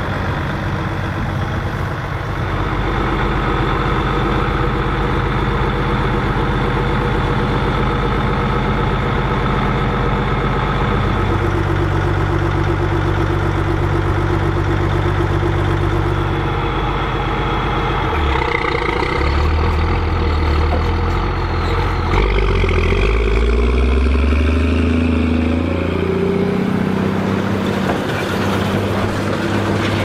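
Case 2294 tractor's diesel engine running under load as it pulls a Hesston 4900 big square baler, with the baler's machinery running. The engine note shifts several times and rises and falls near the end.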